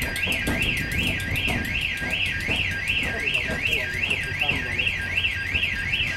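Level crossing audible warning sounding a continuous warbling yodel that rises and falls about three times a second, with the low running noise and wheel knocks of a passing Class 67 diesel locomotive underneath.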